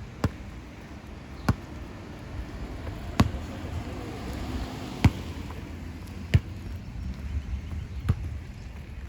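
Footsteps: six sharp heel strikes on a hard surface, about one every second and a half, over a low steady rumble.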